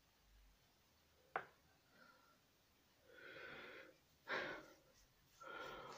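Very quiet: a single light click about a second and a half in, then a person breathing out audibly three times in the second half.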